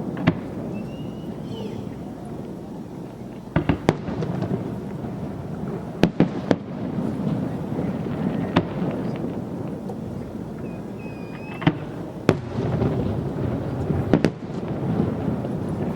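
Fireworks display: about a dozen sharp bangs, several in quick clusters of two or three, over a continuous rumble of distant bursts. There are two short whistles, about a second in and near the middle.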